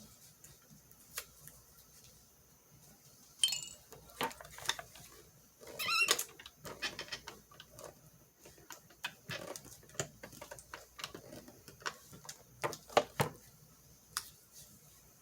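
Handling noises from desk-top paper crafting: scattered clicks, taps and rustles of paper cutouts and tape, with a short ringing clink about three and a half seconds in and a brief rasp around six seconds.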